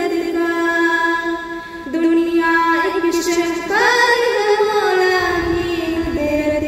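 A girl's voice singing an Urdu devotional hamd or naat, holding long notes and sliding between pitches in ornamented runs.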